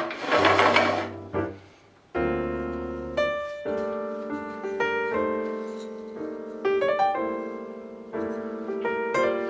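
Background piano music: a slow melody of single struck notes that ring and fade over sustained lower notes. A short burst of noise sounds in the first second.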